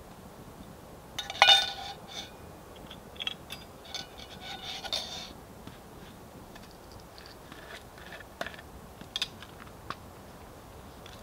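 Metal camp cookware clinking and clanking as it is handled, with the loudest ringing clank about a second and a half in, a run of clinks and scrapes a few seconds later, then scattered lighter clicks.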